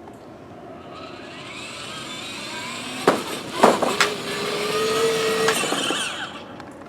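Electric drive motors of a kids' remote-controlled ride-on toy car whirring as it drives, growing louder over several seconds and then fading near the end. Around the middle there are a few sharp knocks, followed by a steady whine that lasts about a second and a half.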